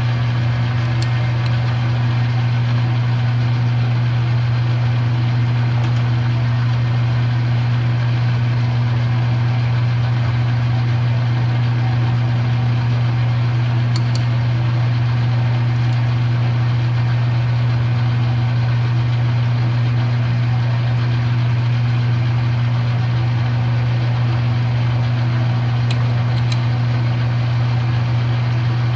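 Metal lathe running steadily with a strong, even motor hum, with a few faint light clicks.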